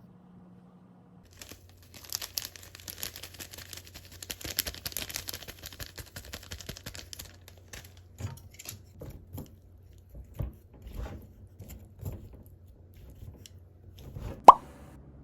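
Packaging being handled: a few seconds of crinkling and tearing, then scattered light taps and rustles, and one sharp click near the end.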